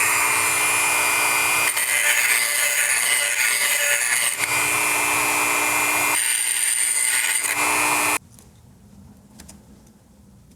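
Small handheld power tool running steadily as it bores out a knob's centre hole to enlarge it slightly, then cutting off suddenly about eight seconds in, followed by a few faint light clicks.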